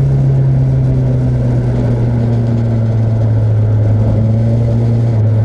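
Mercedes-Benz 190E 2.3-16V's M102.990 16-valve four-cylinder engine heard from inside the cabin, running steadily under way with its note slowly falling.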